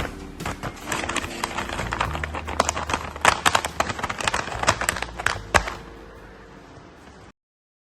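Rapid, irregular taps and clicks of objects being handled, dense for about six seconds, then a brief fading hiss before the sound cuts off abruptly.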